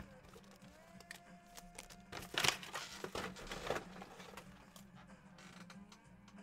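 Light rustling and a few soft knocks of a trading-card box being handled and set down on the table, the loudest about two and a half seconds in, over faint country music playing in the background.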